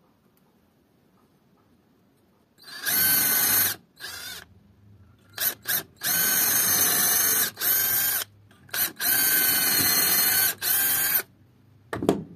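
Cordless drill boring through the oak handle by way of the holes in the axe's steel tang. The motor starts about two and a half seconds in and runs in several bursts of one to one and a half seconds, with short trigger blips between them. A short knock comes near the end.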